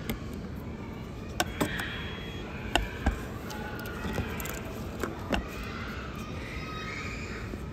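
Orange juice vending machine's collection door and the sealed plastic juice cup: a string of short clicks and light knocks as the door is pulled open and the cup is lifted out, over a steady background hum.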